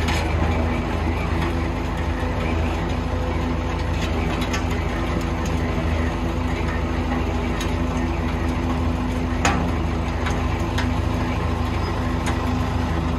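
Engines of a wheeled belt-conveyor sand loader and a backhoe loader running steadily while sand is loaded, with a few short sharp clicks over the drone.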